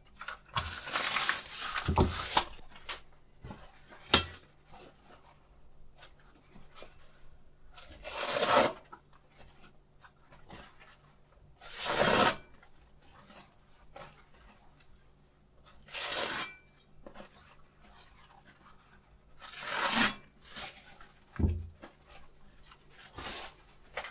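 Freshly sharpened chef's knife slicing through sheets of paper to test its edge: five short papery slicing swishes a few seconds apart, the first one longer. A sharp click falls between the first two cuts, and a dull thump comes near the end.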